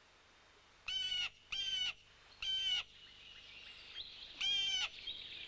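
A bird of prey calling: four short, clear calls, three close together and the last about two seconds later.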